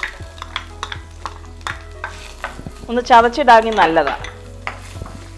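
A spatula stirring and tapping against a ceramic frying pan as ginger and garlic sizzle in melted Dalda, with sharp clicks throughout. About three seconds in, a wavering voice-like melody rises over it for about a second and is the loudest sound.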